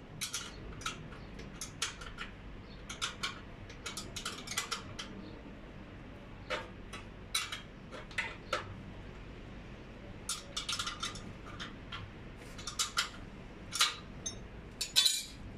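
Spanner clicking and clinking against the nuts and bolts of a metal elevator door rail as they are tightened, in short irregular clusters of metal clicks, the loudest near the end.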